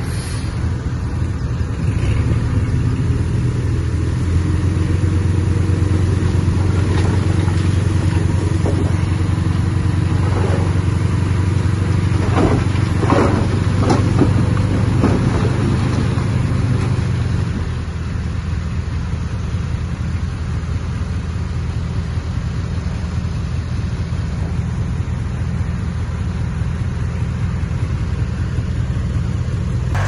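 Heavy diesel engine of earthmoving machinery running steadily, its level dropping slightly about eighteen seconds in.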